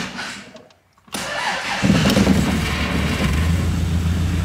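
Triumph TR4's four-cylinder engine cranked on the starter about a second in. It catches within a second and then runs steadily.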